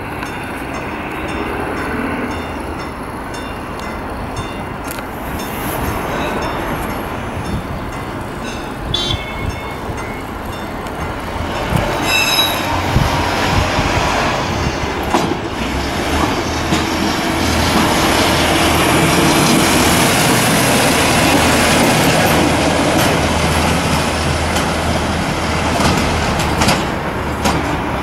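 Plasser & Theurer track maintenance vehicle running on the rails, its diesel engine and wheels growing louder as it comes near. There is a short high tone about twelve seconds in.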